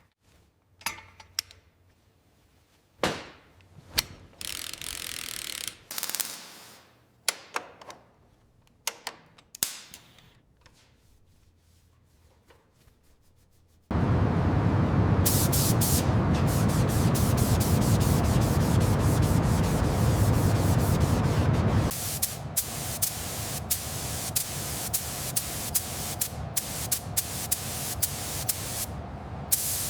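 Workshop work sounds: scattered clicks and knocks of tools on metal, with a few short hisses, then a loud steady mechanical noise that starts abruptly about halfway and drops to a quieter, ticking running noise about eight seconds later.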